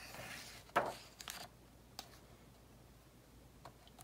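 Page of a hardcover picture book being turned by hand: a soft paper rustle, a sharp tap under a second in as the page comes over, then a couple of fainter paper ticks.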